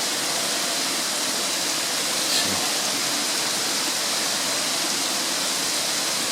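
Heavy rain falling steadily in a rainforest, an even hiss with one brief tap about two and a half seconds in.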